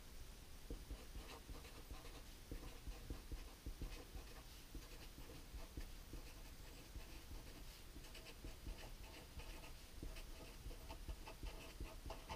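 Felt-tip marker writing a line of text on a sheet of paper: a faint, continuous run of many short strokes.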